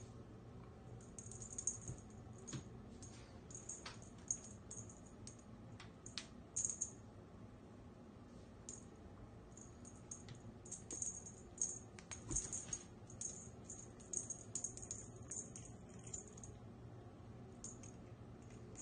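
A cat grabbing, biting and tugging a plush wand toy on a hardwood floor: faint, scattered clicks and short high rustles and rattles recur throughout.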